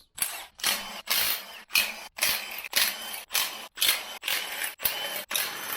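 Ratchet wrench worked back and forth on the engine's main bearing cap bolts, about two rasping strokes a second, breaking the bolts loose.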